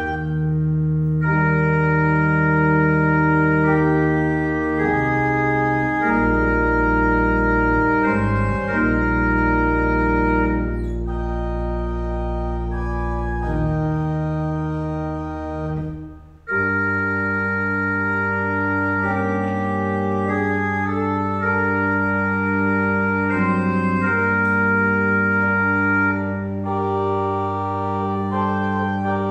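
Church organ playing slow, sustained chords over a deep pedal bass. About halfway through the sound drops out briefly, then a new phrase begins on fresh chords.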